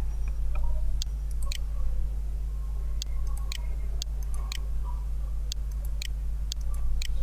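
Computer mouse clicking about ten times, the clicks often coming about half a second apart, over a steady low hum.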